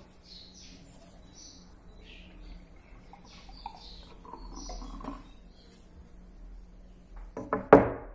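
Birds chirping faintly in short scattered calls, then a few sharp clicks or knocks near the end.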